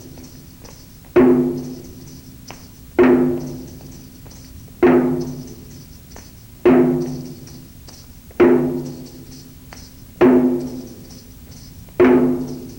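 A drum struck once every 1.8 seconds or so, seven strikes, each with a short pitched ring that dies away before the next. It is a slow count that beats time for the exercise's step-by-step breakdown.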